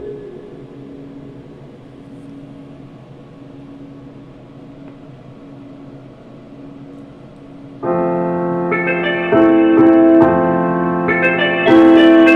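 Keyboard music with held electric-piano chords, played through a home-built parametric equalizer and power amplifier on test. It is faint and thin, with little bass, for about eight seconds, then comes in loud with sustained chords that step up in level twice more.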